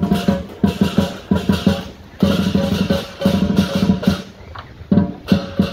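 Chinese lion dance percussion: a big drum beaten in quick strokes with clashing cymbals, coming in loud rhythmic runs with a couple of short breaks. It accompanies the lion taking its gift.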